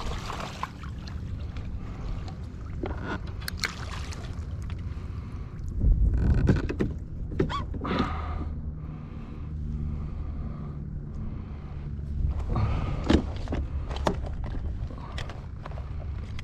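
Water sloshing and splashing around a fishing kayak, with wind rumbling on the microphone and a few sharp knocks and splashes, the loudest about six seconds and thirteen seconds in.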